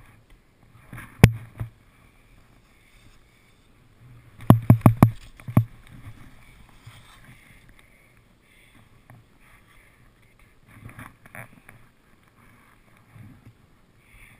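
Skis and poles moving through deep powder snow: a sharp clack about a second in, then a quick run of five or six clacks about four and a half seconds in, with softer scuffs of skis in the snow later on.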